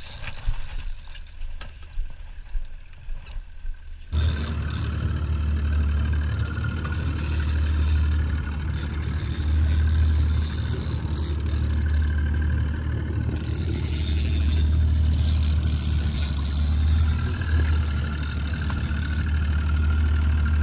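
Boat's outboard motor running steadily at low speed, a loud, even low hum that starts abruptly about four seconds in; before it, a few seconds of quieter scattered knocks and water noise.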